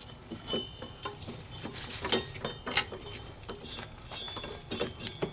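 Rubber deck belt being pulled off the V-pulleys of a Cub Cadet GTX 2100 mower deck: irregular clicks, knocks and rubbing as the belt drags out of the pulley grooves.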